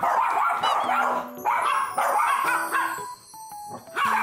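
A Pomeranian and a larger mixed-breed dog barking at each other in rough play, a quick run of sharp barks that pauses for about a second near the end.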